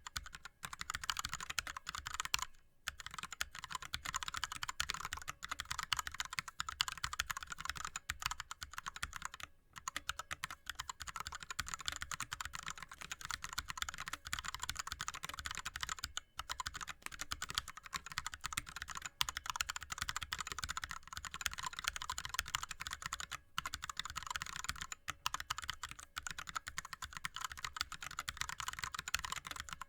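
Fast, continuous touch typing on an ErgoDox split keyboard with Cherry MX Red linear switches and blank DSA keycaps: a dense stream of keystroke clacks, broken only by a few brief pauses.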